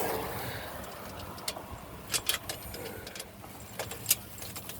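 Scattered light clicks and taps from hand work on a boat fitting as a small screw is fished into its hole, the sharpest click about four seconds in, over a steady low hiss.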